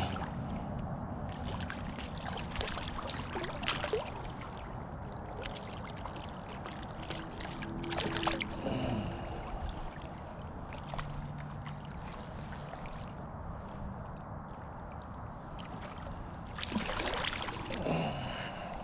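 Stream water running steadily, with splashing and sloshing as a small brook trout thrashes at the surface beside a landing net, about eight seconds in and again near the end.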